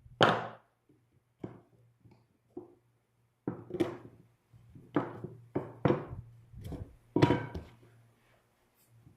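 About eight irregular wooden knocks and thunks from cedar boards being struck or set down while the bench is built, each with a short ringing tail. The loudest come near the start and about seven seconds in.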